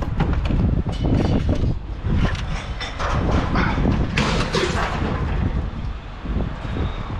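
Low engine rumble with many irregular metallic clanks and rattles over it, most of them between about one and five seconds in.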